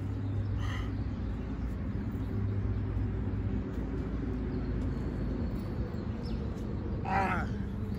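Steady low outdoor background rumble, with a brief faint call just under a second in and a louder call whose pitch bends, a little after seven seconds.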